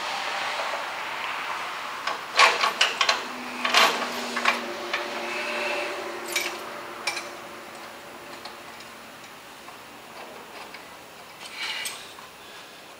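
Metal clanks and knocks as a steel power steering gearbox is worked into place against a truck frame: a quick run of knocks two to four seconds in, then scattered single taps.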